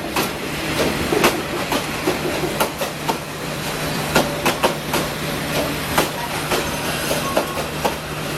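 Diesel-hauled train rolling past, its wheels clacking irregularly over the rail joints above a steady low engine hum.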